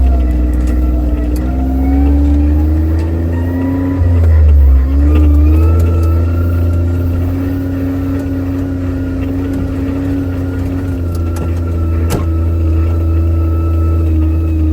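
Vehicle engine running as it is driven along a forest road, its pitch rising and falling with the throttle over a heavy low rumble. A single sharp knock comes about twelve seconds in.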